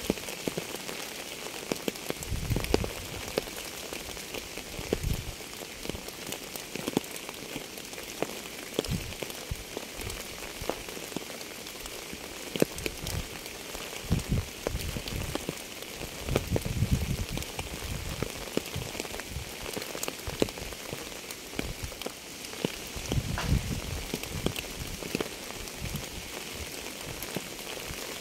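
Steady rain falling, a constant hiss dotted with the sharp ticks of individual drops striking a surface. Irregular low thumps come through every few seconds.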